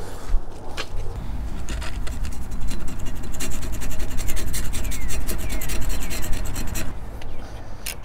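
An old bandsaw-mill blade being handled and marked with a marker: rubbing and scraping of metal, with a dense run of small clicks from about three to seven seconds in.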